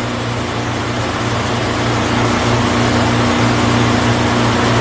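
Vertical milling machine running with a steady motor hum that pulses about twice a second, its end mill spinning as it machines the face of a cam timing gear on a rotary table. The gear is being cut down to clear a Torrington cam thrust bearing.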